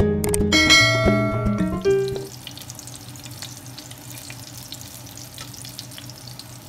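A short musical jingle with a bright chime ends about two seconds in. Then cut hot dog pieces frying in oil in a nonstick pan: a quieter, steady sizzle with faint crackles.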